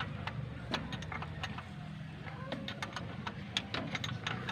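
Irregular light metallic clicks and clinks of hand tools at work fitting a starter motor, over a steady low hum.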